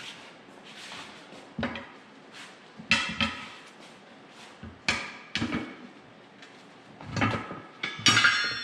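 Hand tire irons clanking and knocking against a steel tractor wheel rim while the tire is levered off by hand. There are several separate metallic knocks, some with a short ring, and they bunch together near the end.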